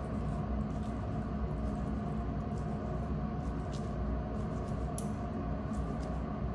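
Steady low background hum, with a few faint soft ticks as a long knife slices serially through a halved kidney on a cutting board.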